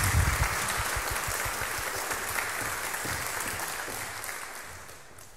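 Audience applauding in a concert hall, a dense patter of many hands clapping that thins out and dies away near the end.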